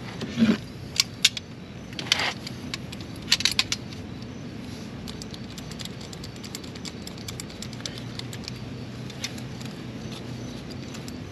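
Sharp metallic clinks as copper refrigerant tubing and tools are handled, then faint, quick ticking as a tubing cutter is turned around a 3/8-inch copper liquid line to cut it.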